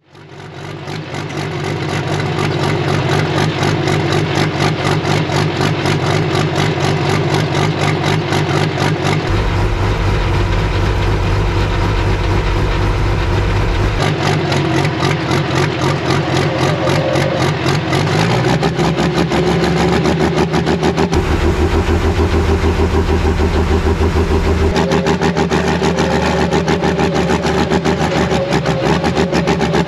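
Pro stock pulling tractor's diesel engine running near idle with a fast, heavy pulsing, fading in at the start; partway through it gives a short rev.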